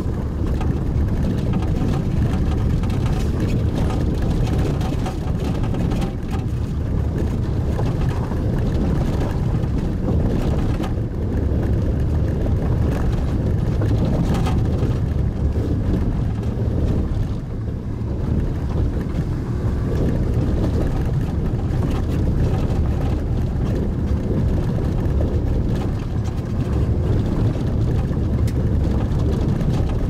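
Mitsubishi Pajero Mini driving on a gravel road, heard from inside the cabin: a steady low engine and road drone with faint scattered clicks of gravel under the tyres.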